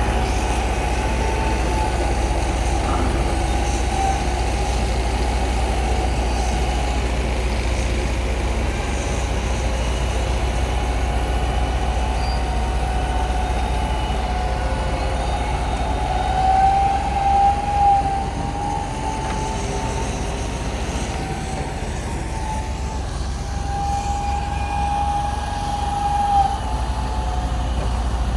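Bulldozer's diesel engine running steadily under load, with a wavering high-pitched squeal over it that swells for a few seconds midway.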